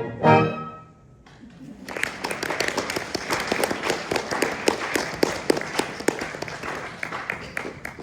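A concert band plays its final brass chords, which cut off within the first second. After a short pause the audience applauds for about six seconds, and the applause dies away near the end.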